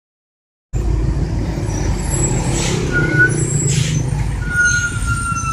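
Dump truck's diesel engine running with a loud, deep rumbling exhaust, cutting in abruptly under a second in, with two short hisses partway through.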